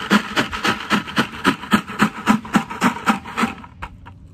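Rocks rattling inside a plastic bucket as it is shaken hard, in a steady rhythm of about four shakes a second. The shaking stops about three quarters of the way through, followed by a couple of small clicks.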